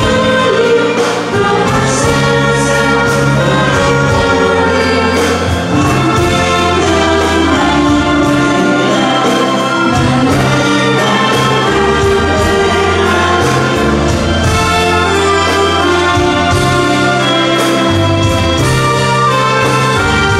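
Live dance band playing: two women singing together into microphones over violin, accordions and a steady bass line.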